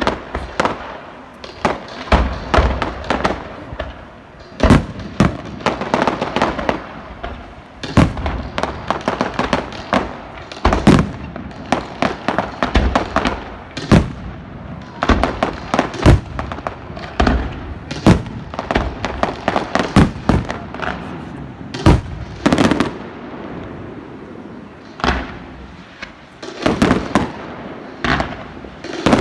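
Fireworks display: a rapid, irregular string of loud bangs and crackles from aerial shells bursting, several a second, the biggest bangs followed by a rolling echo.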